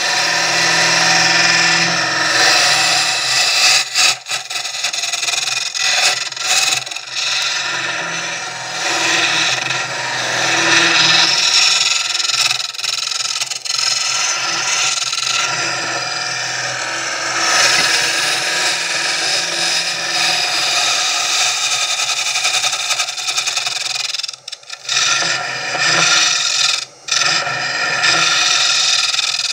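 Wood lathe spinning a blank while a small hollowing tool cuts into the end grain, a steady rasping cutting noise. It breaks off briefly a few times as the tool eases off the wood, longest about three quarters of the way through.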